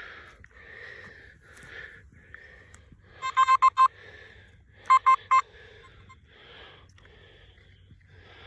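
Metal detector giving its target tone: two clusters of short, rapid beeps, about 3 and 5 seconds in, as it passes over a metal target in freshly dug soil.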